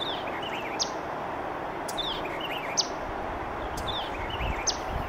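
Small songbird chirping over a steady background hiss: the same short phrase, a falling chirp followed by a few quick notes, repeats three times about every two seconds, like a looped nature ambience.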